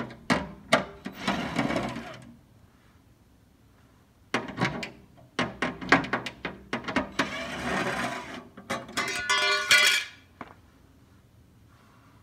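DeWalt cordless impact driver with a 10 mm socket running the oil pan cover bolts out, in a short burst at the start and a longer run from about four to ten seconds in, mixed with sharp clicks of the socket and bolts being handled.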